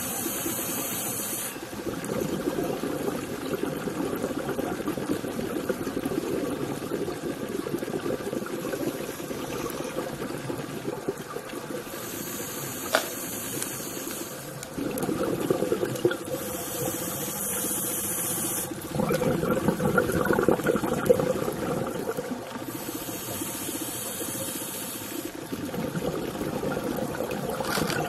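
Scuba diver breathing through a regulator, heard underwater. There are four hissing inhalations, one at the start and three more about five seconds apart from about halfway through, with crackling, bubbling exhalations between them.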